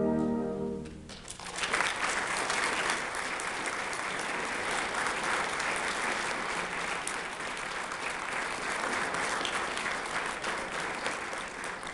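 A concert band's last held chord dies away about a second in, then an audience applauds steadily.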